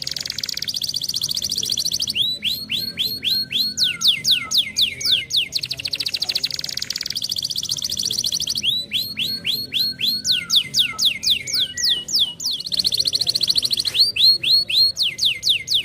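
Domestic canary singing a continuous song. Runs of quick downward-sliding whistled notes, several a second, alternate with stretches of very fast, even trills, and the cycle comes round about three times.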